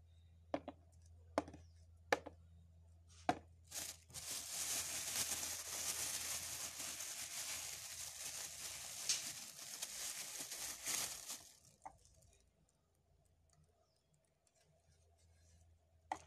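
A few sharp clicks, then plastic packaging crinkling and rustling for about seven seconds before it stops abruptly.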